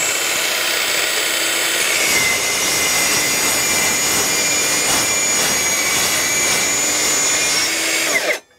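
Milwaukee M18 Fuel cordless metal-cutting circular saw cutting through 1.5-inch square steel tubing with a 1/16-inch wall: a steady high whine over the noise of the cut, winding down and stopping near the end.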